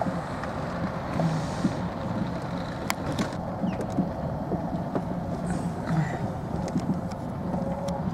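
Golf cart driving along a paved road, a steady running noise with a low hum, and a sharp click about three seconds in.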